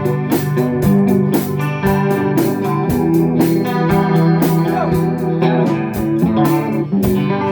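A rock band playing: guitar and organ chords over a steady drum beat of about two hits a second.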